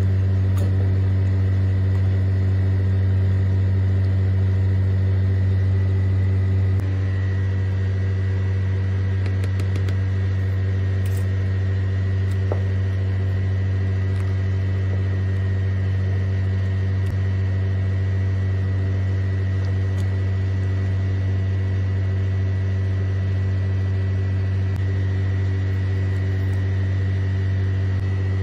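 Steady, loud low mechanical hum with a faint high whine above it, unchanging, with a few faint light ticks about a third of the way in.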